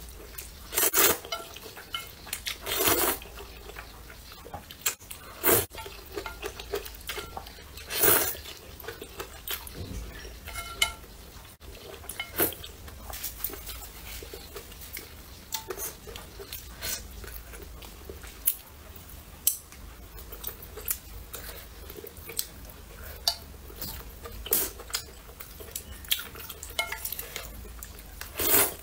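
A person slurping spicy rice noodles and broth in short noisy bursts, with chopsticks clicking against a metal bowl between mouthfuls.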